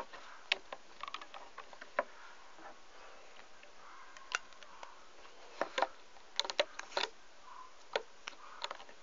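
Light, irregular clicks and snaps of a loom-band hook and rubber bands on the pegs of a plastic loom as the bands are hooked up and over. The clicks come singly at first, then in a quick cluster about six to seven seconds in.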